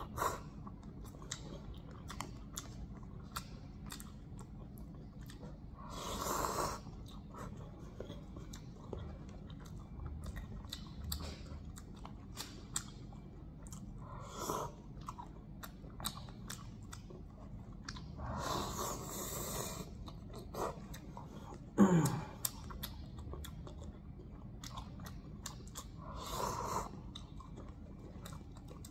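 A person eating instant cup noodles: chewing, with several longer noisy slurps of noodles at intervals. About three-quarters of the way in there is one sudden louder sound with a short falling tone.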